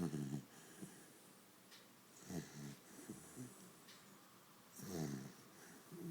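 Pit bull snoring in its sleep: three snores about two and a half seconds apart, with fainter breaths between.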